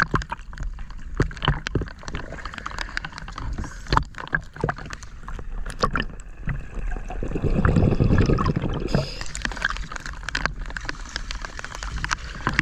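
Sea water sloshing and splashing around a camera held at the surface beside a boat, with many sharp splashes and drips. For a few seconds past the middle the sound turns muffled and gurgling as the camera goes under the water, then it comes back up.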